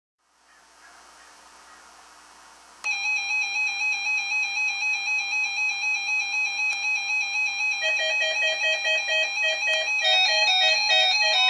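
Electronic synth music with buzzy square-wave tones stepping rapidly back and forth between close pitches. It starts sharply about three seconds in after faint hiss, a lower tone joins around the middle, and a rising tone comes in near the end.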